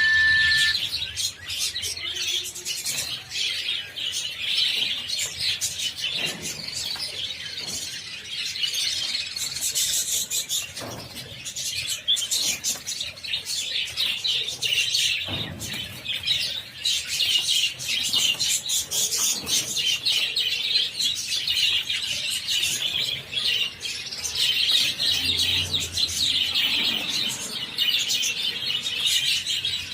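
A large flock of budgerigars chattering and chirping continuously, many birds calling at once.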